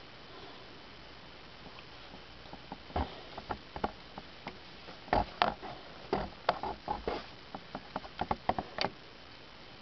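Irregular light taps and clicks of handling noise, a few scattered at first and then coming thick and fast from about five to nine seconds in.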